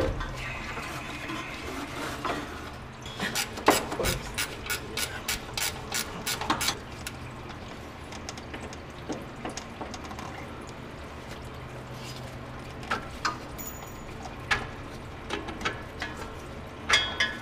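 A socket ratchet clicking in a quick run as the alternator mounting bolts are backed out, followed later by a few scattered clicks and knocks of the tool on the bracket.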